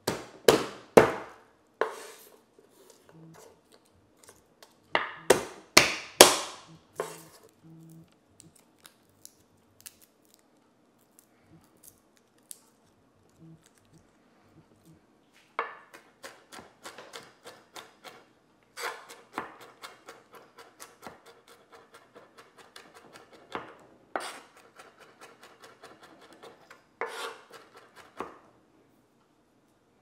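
Chef's knife on a wooden cutting board. Garlic cloves are crushed under the flat of the blade, giving a few loud knocks near the start and again a few seconds later. From about halfway the cloves are minced with fast knife chopping, several quick taps a second with occasional harder knocks, until near the end.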